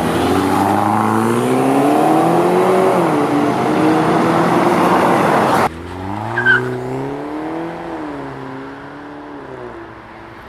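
BMW F20 116i 1.6 hatchback with an aftermarket cat-back exhaust, its exhaust note rising and falling in pitch as the car pulls away under throttle. About halfway through the sound cuts abruptly to a quieter pass, where the note again rises and falls through gear changes and fades as the car drives off.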